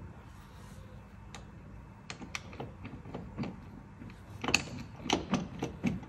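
Light metallic clicks and taps of hands fitting sleeve nuts onto the gearbox mount bolts, sparse at first, then coming quickly and irregularly from about four and a half seconds in.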